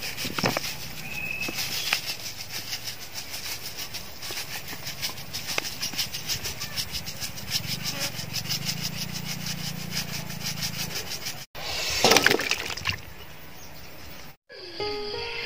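Wooden pestle pounding papaya salad in a large pot, a steady rhythm of about four strokes a second. Near the end a brief louder noisy burst, then music starts in the last second.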